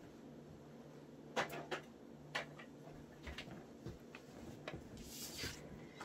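Faint clicks and light knocks of paper and craft supplies being handled on a tabletop, then a brief paper rustle near the end as a large printed page is picked up and laid in place, over a low steady hum.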